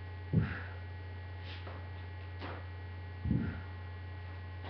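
Steady electrical mains hum, with two brief low thuds: one just after the start and one about three seconds in.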